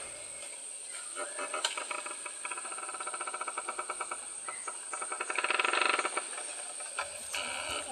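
Insects, crickets by their sound, trilling in fast, even pulses that swell to their loudest about six seconds in, with a thin steady high whine underneath.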